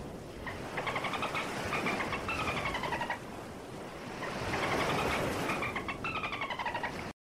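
Dolphins clicking and calling: two bouts of rapid clicks with buzzy whistles that fall in pitch, with a watery hiss between them. The sound cuts off suddenly just before the end.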